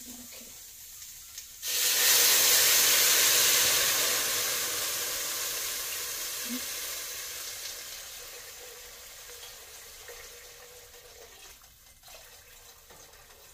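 Homemade vegetable broth poured from a large glass jar into a hot pot of sautéed tofu and carrots. A sudden loud rush and hiss of liquid as the broth hits the hot pot begins about two seconds in, then fades gradually over about ten seconds as the pour goes on.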